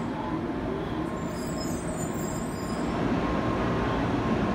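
Shinkansen N700A bullet train pulling slowly out along the platform: a steady low rumble of the running train with a thin steady tone over it, growing louder about three seconds in as it gathers speed.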